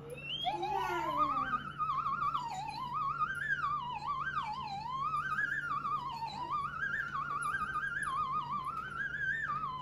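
Eerie theremin-style tone with strong vibrato, sliding slowly up and down in pitch without a set tune. It works as a spooky, comic 'something suspicious' sound effect.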